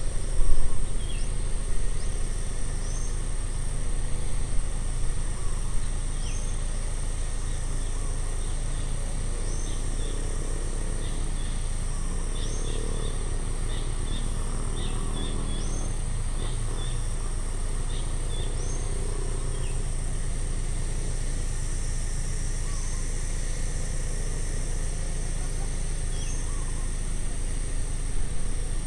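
Outdoor ambience: small birds chirping again and again in short hooked notes over a steady high insect drone and a low rumble. The rumble is uneven for the first few seconds, then steady.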